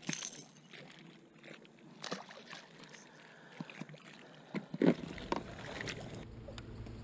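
Clicks and knocks of fishing pliers and hands working a hook loose from a small fish, then the fish dropped back into the lake with a small splash about four seconds in. Near the end a steady low hum sets in.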